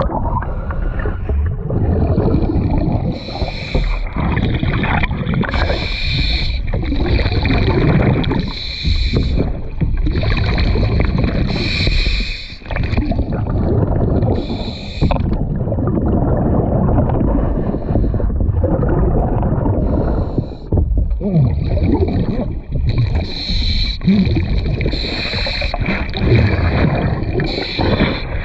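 A scuba diver breathing underwater through a regulator: exhaled bubbles rumble and gurgle steadily, and a hiss comes again and again with the breaths.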